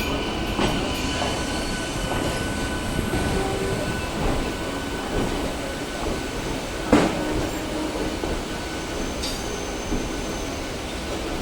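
Train running along the track: a steady rumble of wheels on rail with faint squealing tones. A single sharp knock comes about seven seconds in.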